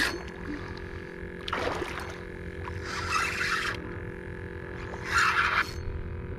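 Hooked redfish splashing and thrashing at the surface beside a kayak, in several short splashes one to two seconds apart.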